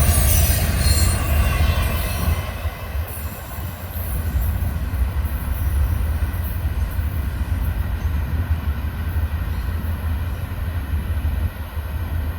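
Florida East Coast freight train rolling past with a steady low rumble. Wheels squeal high-pitched in the first couple of seconds, then fade.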